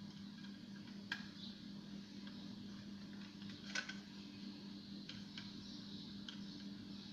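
Faint scattered clicks and taps over a steady low hum, with the two clearest clicks about a second in and just before four seconds.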